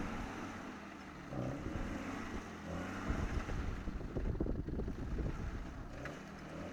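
Off-road 4x4's engine running, its pitch rising and falling as it is revved, with wind on the microphone.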